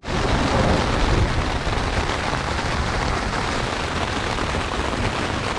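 Heavy rain drumming on a tent during a thunderstorm, with a deep rumbling underneath; it is pretty loud, loudest in about the first second.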